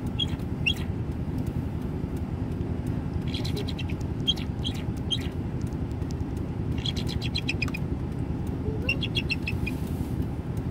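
Bald eagle calling: four bouts of rapid, high, piping chirps, each bout a quick run of short notes. A steady low rumble runs underneath.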